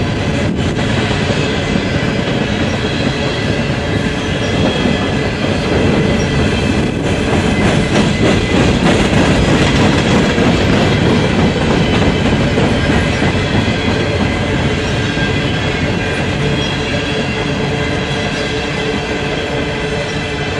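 Empty coal hopper cars of a long freight train rolling past, a steady rumble and clatter of steel wheels on rail with a faint high ringing over it, growing a little louder midway.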